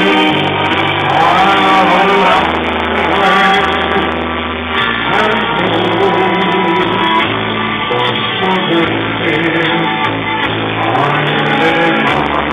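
A man singing into a handheld microphone, amplified over backing music with a bass line that steps from note to note.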